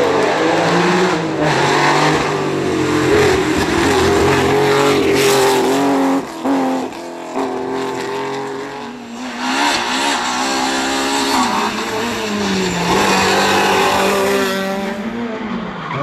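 Classic Porsche 911 rally car's air-cooled flat-six engine revving hard. Its note climbs, drops sharply for a moment about six seconds in as the driver lifts and brakes for the corner, then rises and falls again through the gears as the car pulls away.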